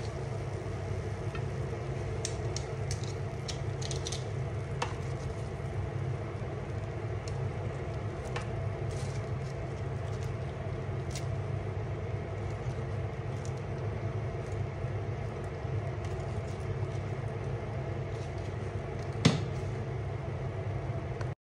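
A steady low mechanical hum with faint scattered crackles, and a single sharp click near the end.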